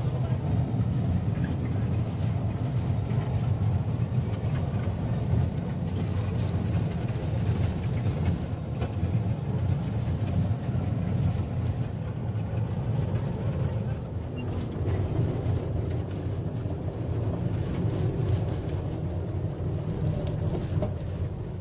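Steady low rumble of a small sightseeing road train running, heard from aboard.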